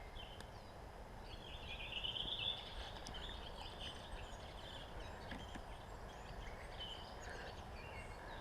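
Faint songbirds calling: scattered short chirps, with a longer warbling phrase about two to three seconds in, over a low steady background noise.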